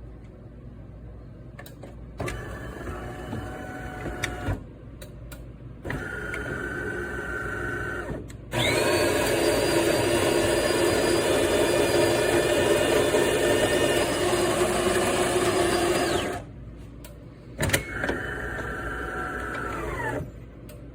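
De'Longhi ESAM3300 Magnifica super-automatic espresso machine running through its cycle. Its motors run in several separate spells of a few seconds each, with one longer, louder run of about seven seconds in the middle.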